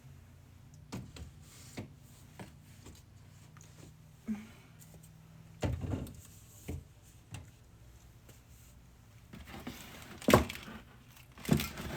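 Yogurt containers being set into a refrigerator: scattered light knocks and clicks of containers on the shelves, with louder thuds about six seconds in and again near the end. A low hum stops about halfway through.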